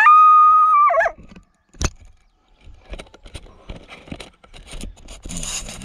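A male coyote caught in a foothold trap gives one howl: it rises quickly, holds a steady high pitch for about a second, then falls and breaks off. Faint scattered clicks and rustling follow.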